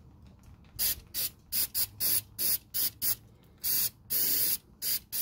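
Aerosol brake cleaner sprayed in a quick series of short hissing blasts, about a dozen, with one longer spray of about half a second near the end. It is being used to wash oil and dirt off a rear brake hub and backing plate.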